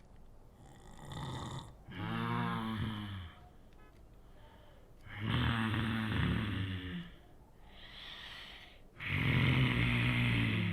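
A person snoring heavily: three loud, rattling snores about three and a half seconds apart, with quieter breaths between them.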